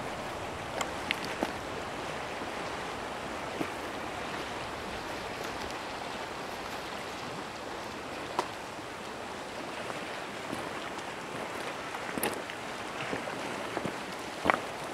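Steady hiss of small waves washing over a rocky, grassy seashore, with wind, and a few scattered light ticks.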